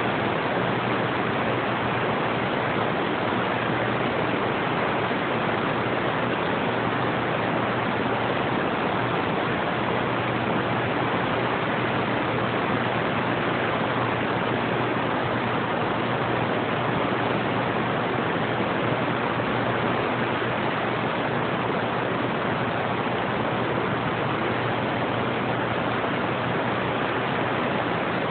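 Steady hiss of band static from a two-way radio receiver with no station coming through, even and unchanging throughout.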